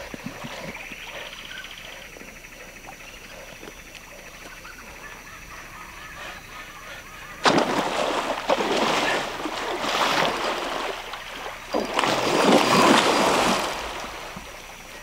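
Hooked arapaima thrashing at the river's surface: loud splashing starts suddenly about halfway through, dies back briefly, then comes again in a second spell that fades shortly before the end.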